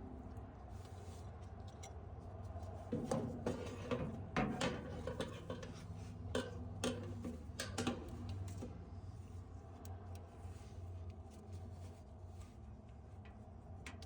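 Metal parts clinking and knocking as they are handled, with a busy cluster of clicks a few seconds in that thins out later, over a steady low hum.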